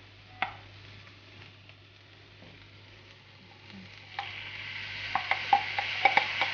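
Taco filling of ground meat, peppers and corn frying quietly in a pan, with a single tap about half a second in. About four seconds in the sizzle grows louder as red beans are scraped into the hot pan from a plastic container, with several sharp taps of the spatula.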